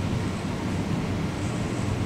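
Steady hiss of FM static from a vintage GE AM/FM 8-track stereo's radio, tuned between stations and played through small computer speakers.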